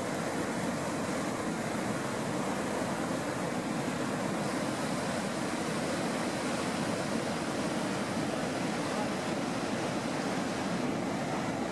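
A large waterfall on the Merced River and the whitewater cascade below it: a steady, even rushing of falling water that does not let up.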